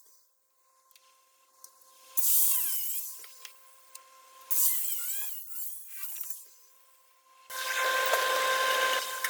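A power tool working metal: two short runs of about a second each, then running steadily from about three-quarters of the way in.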